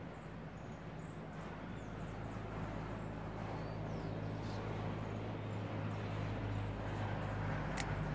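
Outdoor ambience: a steady low engine hum that grows gradually louder, with faint, scattered short bird chirps above it and a single sharp click near the end.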